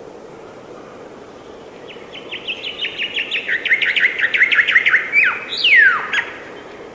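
A songbird singing: a fast trill of short repeated notes, roughly eight a second, growing louder for about three seconds, then a long note sliding steeply down in pitch, over a steady background hiss.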